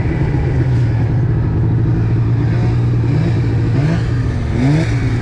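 Snowmobile engines running steadily at low revs, then revved up and down several times from about three seconds in.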